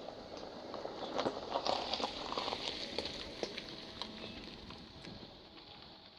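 Insects and birds calling, heard as a steady high-pitched chorus, with scattered crackling clicks throughout and a louder patch of rustle between about one and two and a half seconds in.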